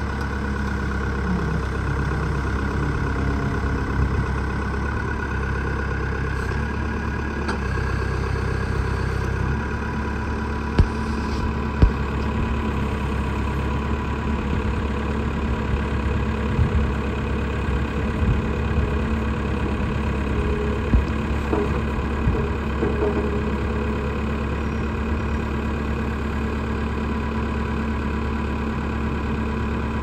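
JCB 212S backhoe loader's Perkins diesel engine running steadily at low speed. Its note changes about a third of the way in, and two short sharp knocks follow soon after.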